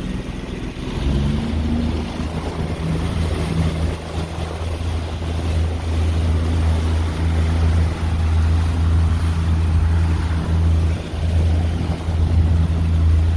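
Boat's outboard motor running under way, its pitch rising about a second in as it speeds up and then holding a steady drone.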